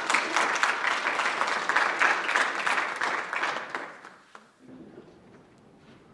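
Audience applauding in a hall, dying away about four seconds in.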